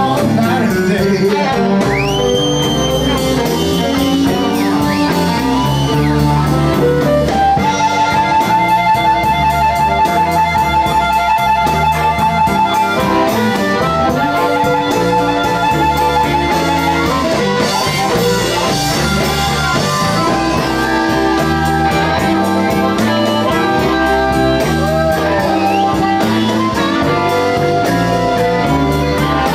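Live electric blues band playing an instrumental passage: amplified harmonica playing long held and bent notes, one wavering note held for several seconds near the middle, over electric guitar, bass and drums.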